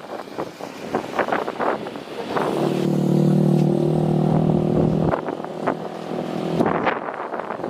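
Strong wind gusting across the microphone, with a steady engine hum rising in about two and a half seconds in, holding for a few seconds and dropping away about five seconds in.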